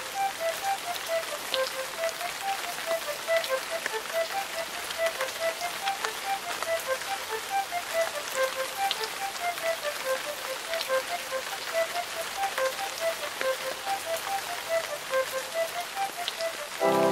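Soundtrack music: a quick melody of short, detached notes, about four or five a second, over a steady hiss with small crackles that sounds like rain.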